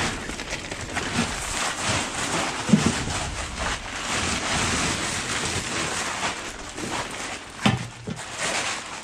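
John Deere utility tractor running steadily, heard as a constant noisy hiss. A couple of short dull thumps stand out, about three seconds in and again near the end.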